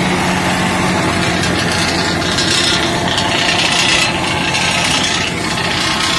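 Mahindra super seeder, drawn by a John Deere 5210 tractor, churning paddy straw and soil: a steady rasping, grinding noise, strongest in the middle. The tractor engine's hum underneath fades about a second in.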